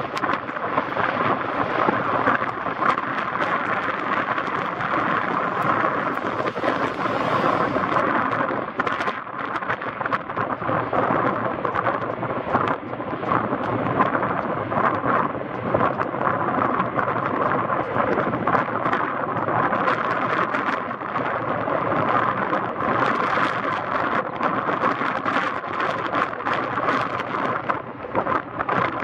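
Sikorsky CH-54A Skycrane heavy-lift helicopter flying, its rotors and twin turbine engines making a loud, dense, steady noise that rises and dips a little in level.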